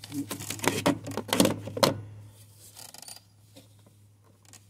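Handling noise: a quick run of light clicks and knocks for about two seconds as the camera and hands work in among the ATV's plastic footwell panels, then it goes quiet, over a low steady hum.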